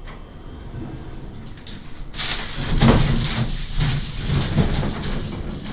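Schindler EuroLift car doors sliding open after the lift stops at a floor, a loud rushing, rumbling noise with some knocks that starts about two seconds in.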